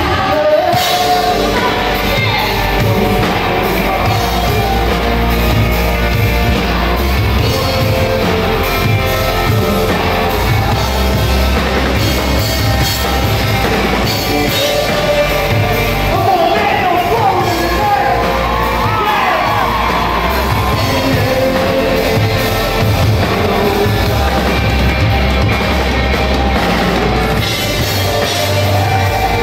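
Live rock band playing loudly, with electric guitar and drum kit under male and female voices singing.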